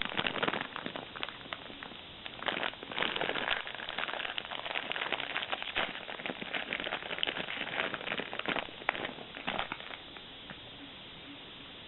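Plastic wrapper crinkling and crackling as it is handled, dense and irregular, stopping about ten seconds in.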